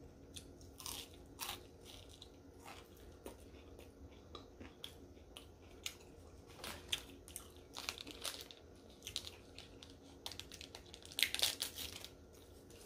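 Close-miked chewing and biting of sushi: a string of short crunches and mouth clicks, thickest and loudest about eleven seconds in.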